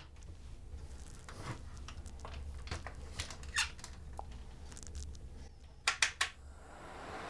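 Handling of a Milwaukee M12 mounting fan: scattered plastic clicks and squeaks as the battery is seated and the fan is turned. About six seconds in comes a quick run of sharp clicks as the speed dial is turned, and near the end the fan's airflow starts and rises.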